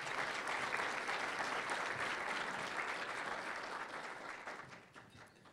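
Audience applauding, the clapping dying away about a second before the end.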